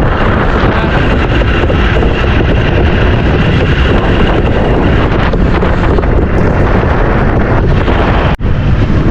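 Strong wind buffeting the microphone on an open boat at sea, a loud, steady rumbling rush. It cuts out for an instant near the end.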